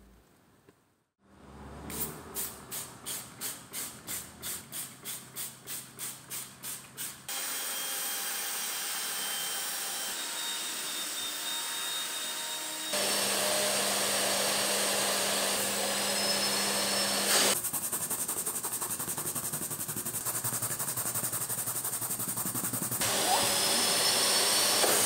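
Car-seat upholstery cleaning tools in turn: first a rhythmic stroking about twice a second, then a cordless drill spinning a scrub brush over the seat, and near the end a carpet extractor's wand sucking the shampoo back out of the seat fabric.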